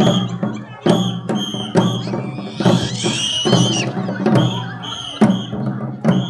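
Children's marching drum corps playing a bass drum and snare drums in a steady march beat, about one strong beat a second, each beat carrying a short high tone.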